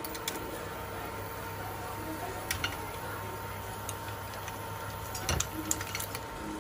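Induction cooktop humming steadily under a frying pan, with faint sizzling and scattered light clicks and taps as an egg is cracked and spread over the frying dough; a louder knock a little after five seconds in.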